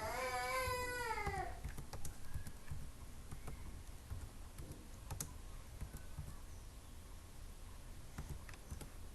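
Computer keyboard and mouse clicks, scattered and irregular. A high-pitched, cat-like voice call sounds in the first second and a half.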